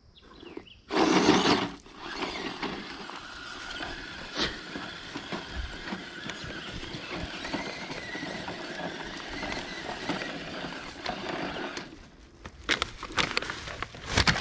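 Enduro Trail Walker RC crawler truck driving over dirt and gravel: a small electric motor and gears whining steadily, with a louder burst about a second in. A few sharp clicks and knocks come near the end.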